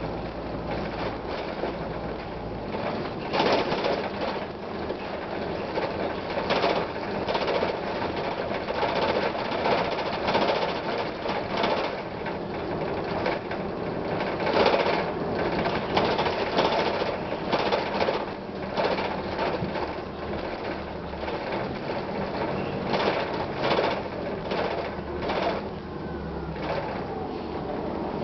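Inside a 1999 Gillig Phantom transit bus: its Detroit Diesel Series 50 engine running, with frequent rattles and squeaks from the body and fittings.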